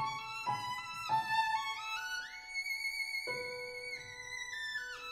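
Background music: a melody of long held notes, some of them sliding from one pitch to the next.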